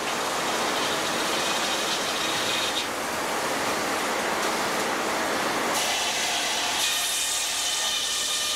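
Sawmill circular headsaw sawing a log on the carriage: a dense, steady saw noise, with a high whine that comes in briefly about a second and a half in and again for the last few seconds.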